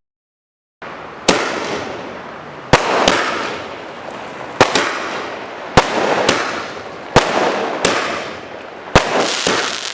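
Ruby (Praveen) Fireworks 'Universal' 60-shot multishot sky-shot cake firing. It starts just under a second in, with sharp bangs roughly once a second, some in quick pairs, each trailed by a fading crackling hiss.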